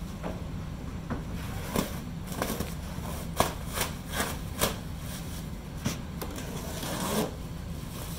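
Plastic stretch wrap being pulled and torn off a pallet of cardboard boxes: irregular crinkling and sharp crackles, over a steady low hum.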